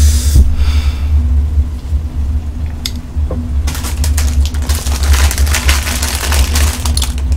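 Jjajang instant noodles sizzling in a wide pan as the sauce reduces over a portable gas stove. The sizzle swells near the start and again through the second half, over a steady low rumble.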